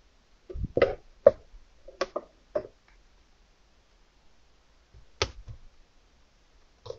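DVD box-set cases knocking and tapping as they are handled and set down: a quick run of sharp knocks in the first three seconds, another knock about five seconds in, and a faint one near the end.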